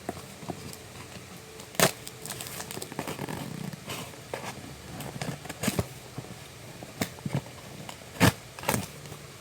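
A gift package being opened and handled by hand: rustling and scraping, with several sharp knocks and clicks, the loudest about two seconds in and near the end.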